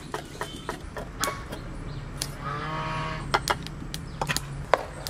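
Steel ladle clinking and tapping against a steel bowl and plate as rice flour is scooped and tipped into warm water: a scatter of sharp clicks. A drawn-out call sounds in the background about halfway through.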